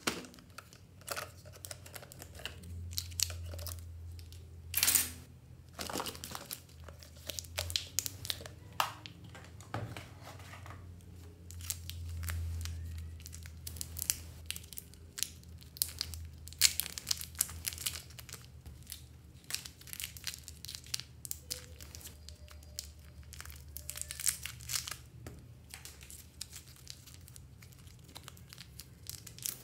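Clear plastic wrappers crinkling and tearing as small wrapped pieces are handled and unwrapped by hand, with scattered clicks and rustles of plastic throughout.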